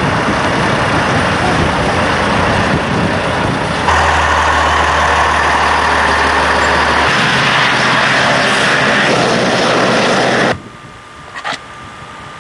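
Heavy tanker trucks driving past close by, a loud steady rush of engine and tyre noise with a low hum rising under it for a few seconds. About ten seconds in, it cuts off abruptly to quiet outdoor background.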